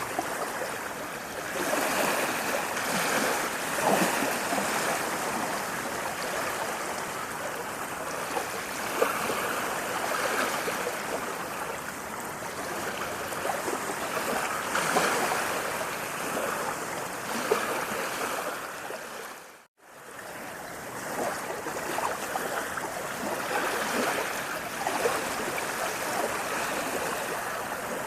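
Steady rushing water that swells and eases every few seconds. About two-thirds of the way through it fades briefly to near silence and comes straight back.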